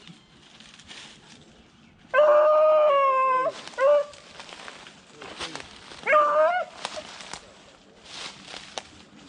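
A rabbit hound baying on the trail. It gives a long held bay about two seconds in, a short one just after, and another bay about six seconds in: the dog is running a rabbit.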